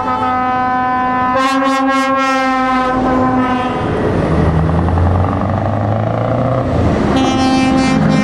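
Passing trucks' air horns sounding a long chord that holds for about three and a half seconds, then the low, steady running of a heavy truck's diesel engine as it goes by, with another horn chord starting near the end.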